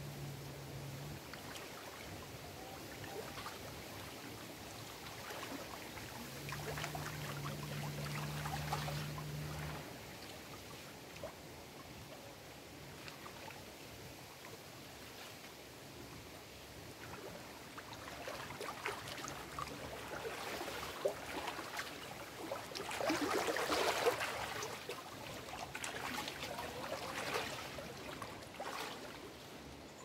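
Small waves splashing and lapping against the rocks of a lake shore, in uneven surges. A stronger spell of splashing comes about a quarter of the way in, and the strongest comes around three-quarters of the way through.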